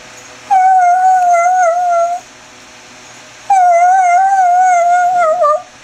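Greyhound 'rooing': two long, wavering howls, the second slightly longer and wobbling at its end.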